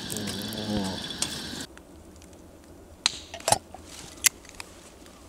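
Gas-canister lantern burning with a steady hiss, cut off suddenly a little under two seconds in. After that, a few sharp clicks over faint background.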